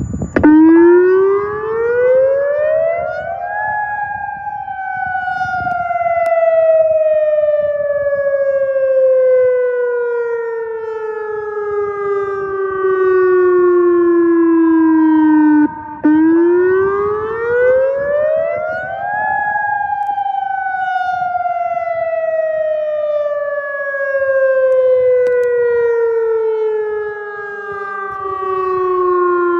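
Outdoor tornado warning siren sounding its test: the tone starts about half a second in, climbs steeply for about three seconds, then falls slowly for about twelve. Halfway through it breaks off for an instant and the same rise and long fall repeats. Its loudness swells and fades as it sounds.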